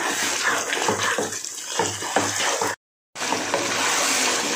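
Mutton and masala paste sizzling in a nonstick kadai with a little water added, while a spatula stirs and scrapes through it in short strokes. The sound cuts out for a moment about three seconds in.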